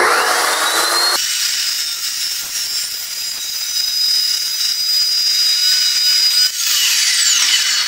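Evolution metal-cutting chop saw with a carbide-tipped blade spinning up with a rising whine, then cutting through a steel tube with a steady high whine. About six and a half seconds in the cut is through and the blade winds down with a falling whine.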